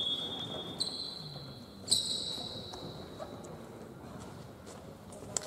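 Referee whistle blasts on a basketball court: a shrill whistle held into the first second, another starting about a second in, and a sharp louder blast about two seconds in that rings out in the hall. Faint ball bounces and knocks follow.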